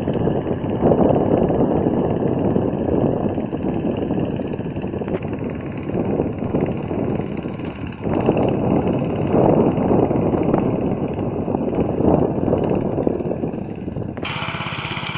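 Motor Sich MB-9E walk-behind tractor engine running as it pulls a harrow across the field, with gusty wind buffeting the microphone. About a second before the end the sound switches abruptly to the engine heard close up, running steadily.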